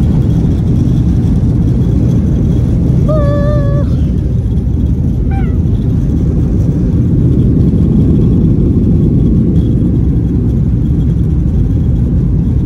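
Inside a jet airliner's cabin, engine and airflow noise rumbles loudly and steadily, as during the takeoff roll. A short held voice sound comes about three seconds in.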